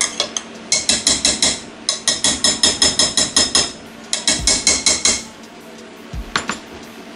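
Metal potato masher clanking against a stainless steel bowl while mashing boiled potatoes: rapid ringing strikes, about six a second, in three runs. A single knock follows about six seconds in.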